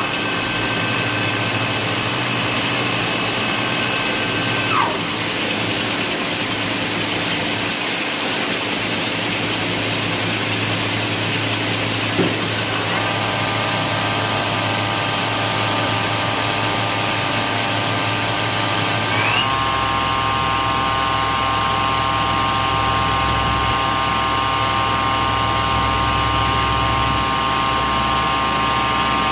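Makino A71 horizontal machining center spindle running free with no cut, a whine of several steady tones over a constant hiss. The pitch changes as the spindle steps through speeds: a falling glide about five seconds in, a new set of tones about thirteen seconds in, and a short rising glide about nineteen seconds in, after which a low hum joins.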